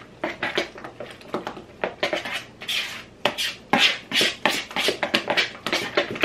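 A utensil scraping and knocking against a mixing bowl while stirring a thick ricotta-cheese filling: a quick, irregular run of scrapes and clacks, several a second.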